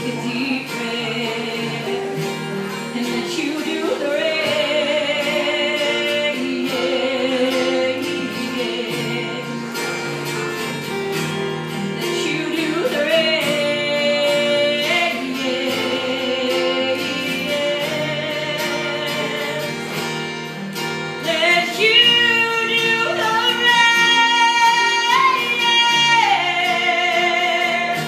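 A woman sings live with two acoustic guitars strumming chords beneath her. She sings long, held notes with vibrato and climbs to high sustained notes near the end before dropping back down.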